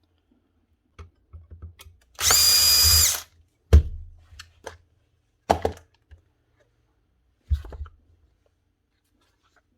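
A cordless power drill runs at one steady speed for about a second, followed by three or four separate knocks and clatters of tool parts being handled.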